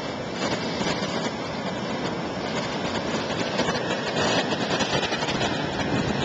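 Rough tropical-storm surf breaking and washing against a rock seawall, heard as a steady, dense rush of water noise.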